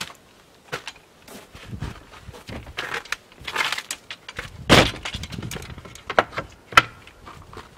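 Wooden plank door of a log cabin being worked and pushed shut: scattered knocks, scraping and rattling, with a heavy thud a little past halfway and a sharp click near the end.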